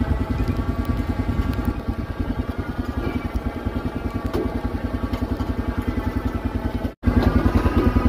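An engine idling steadily with an even, rapid pulse. It drops out briefly about seven seconds in and comes back louder.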